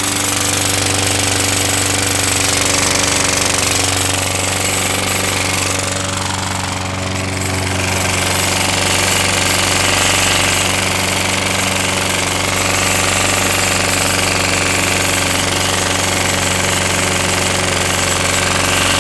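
Small lawn mower engine running steadily on a home-made fuel-vapor intake, its air metered by a PVC valve that has been closed down because the vapor mixture keeps getting drier. The level sags slightly about six to seven seconds in, then steadies again.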